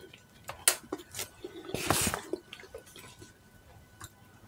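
Close-up eating sounds: a few sharp clicks of a spoon against a small plastic food container and wet mouth noises, with one louder rustling sound about two seconds in.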